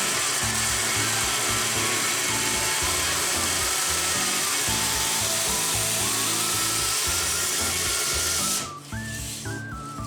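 A power tool running steadily with an even, hissy grinding noise, cutting off about eight and a half seconds in. Background music plays throughout.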